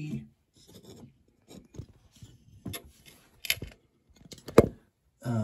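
Small clicks and rubbing of plastic and metal as the toilet seat's mounting nuts and bolts are handled and tightened by hand under the bowl, with one sharp click about four and a half seconds in.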